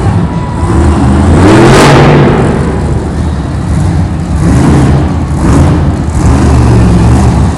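Monster truck engine revving hard in repeated surges, the loudest about two seconds in.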